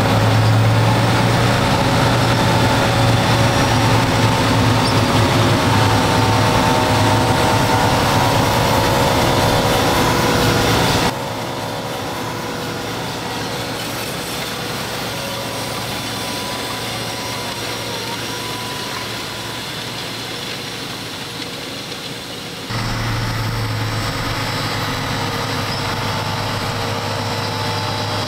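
Fendt 939 Vario tractor's six-cylinder diesel engine running steadily under load while pulling a planter, with a deep hum. The sound cuts abruptly twice: about 11 seconds in it drops to a quieter, thinner engine sound, and near 23 seconds it jumps back up to the fuller, louder running.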